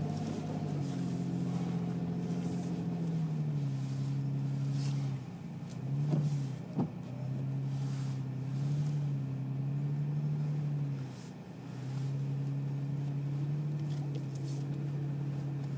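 Toyota FJ Cruiser's V6 engine heard from inside the cab while driving through snow, a steady drone whose pitch rises and falls with the throttle. It eases off twice, around five and eleven seconds in, and there is a single sharp knock about seven seconds in.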